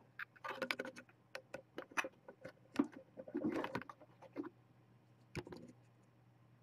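Irregular rustling and sharp clicks of hands moving blankets and objects in a kitten bed, stopping about a second before the end.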